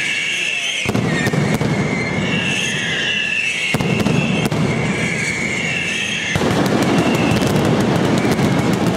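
Daytime mascletà firecrackers going off in quick succession: dense crackling and banging, with a high wavering whistle running over it. The crackle grows much denser and louder about six seconds in.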